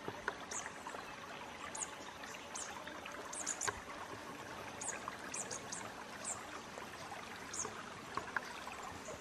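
Creekside bush ambience: a steady trickling-water hiss, with short high chirps repeated every second or so and a few soft clicks and rustles.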